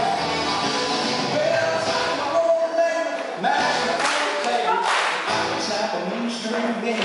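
Country song with singing playing for line dancing. The bass drops out for about three seconds midway, leaving the voice and higher instruments, then comes back.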